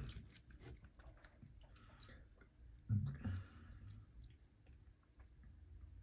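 Faint mouth sounds of tasting a carbonated drink, lip smacks and swallowing, with small clicks. About three seconds in comes a short thump as the plastic seltzer bottle is set down on a wooden desk.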